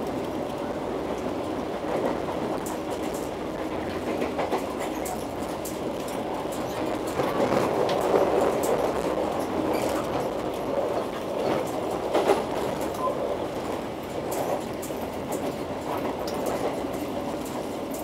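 Argo Parahyangan passenger train running at speed, heard from inside the coach: a steady rumble of wheels on rails with scattered clicks and knocks over the track. It grows louder for several seconds in the middle, with one sharp knock about two-thirds of the way through.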